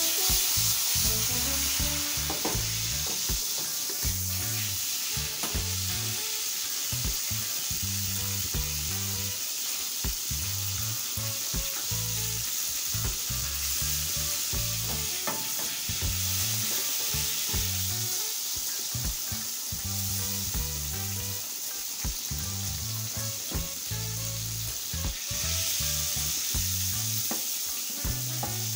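Shrimp sizzling steadily as they fry in hot oil in a nonstick frying pan, with a spatula now and then scraping and tapping against the pan as they are turned.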